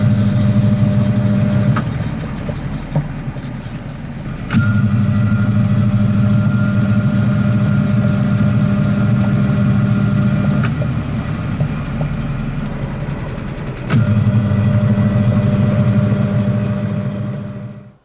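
Sharp ES-FG45 washing machine's drive motor running with its newly fitted V-belt, humming in runs of a few seconds that start and stop abruptly, with short pauses between. A faint higher whine sounds during the middle run.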